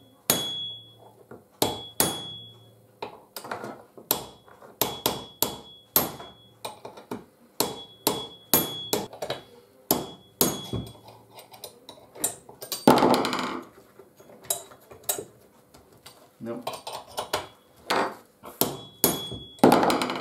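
Hammer driving a small cold chisel against a chainsaw clutch, repeated sharp metal-on-metal taps about two a second, several ringing briefly. The taps are turning the clutch off its thread while cord in the spark plug hole stops the piston. A longer, louder rasp about two-thirds of the way through.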